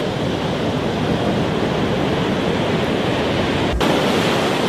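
Steady rushing noise with no clear tone or rhythm, broken briefly about four seconds in.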